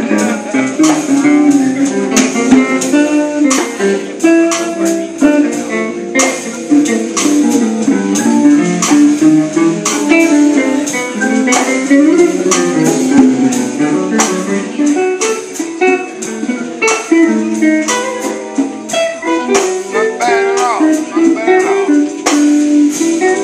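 Live small jazz combo playing an instrumental passage: plucked guitar lines over keyboard chords, with drums keeping time.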